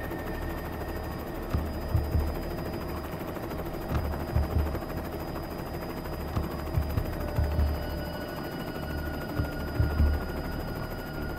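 Helicopter cabin noise with the side door open: a steady engine and rotor din with a faint whine, broken by irregular deep thumps of wind buffeting the microphone in strong gusts.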